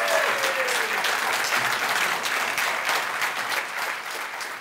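A large audience giving a standing ovation: dense, many-handed applause that fades away toward the end.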